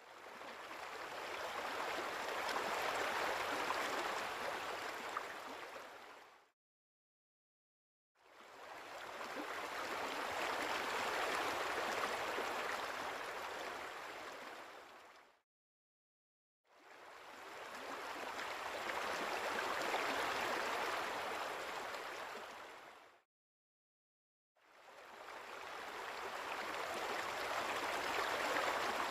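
A steady rushing noise like running water, in three swells of about six seconds each and a fourth beginning near the end, each fading in and out with dead silence between them.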